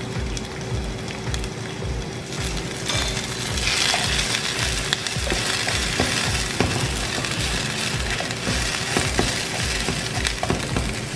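Sliced onions sizzling in hot oil in a nonstick pan while being stirred with a spatula, with light clicks of the spatula against the pan. The sizzle gets louder about three to four seconds in.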